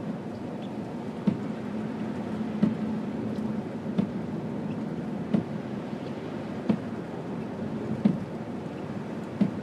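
Inside a car driving through falling wet snow: a steady road and engine hum, with the windshield wipers knocking at each sweep about every second and a third, eight times.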